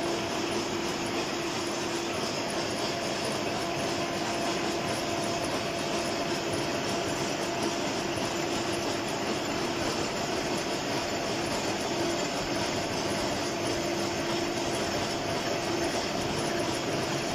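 Gear hobbing machine running steadily, cutting the teeth of a worm wheel: continuous machine noise with a constant hum.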